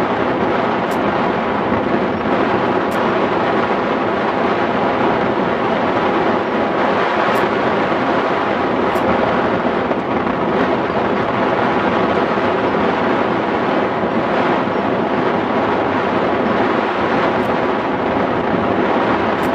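Steady, loud rush of airflow over the microphone of a camera mounted on a hang glider in flight.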